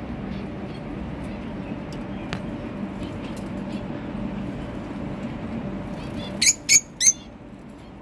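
Cockatiel giving three short, loud, shrill calls in quick succession near the end, over a steady low hum.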